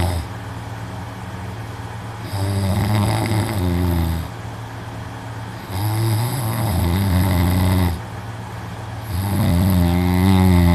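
A young man snoring loudly in his sleep: three long snores of about two seconds each, one every three to four seconds.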